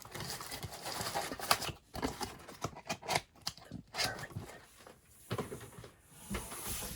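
Handling of boxes and packaging: irregular rustling with scattered clicks and light knocks.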